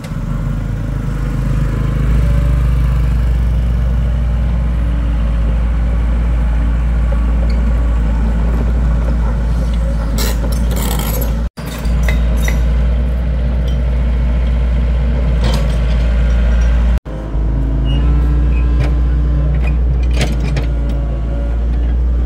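Large diesel engine of heavy machinery running steadily, with a few sharp metallic clanks and knocks over it. The sound cuts out for an instant twice, about halfway and about three-quarters through.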